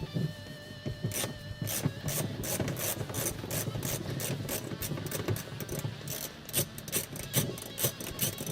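Hand ratchet clicking rapidly as Torx screws are backed out of a UTV's plastic console panels.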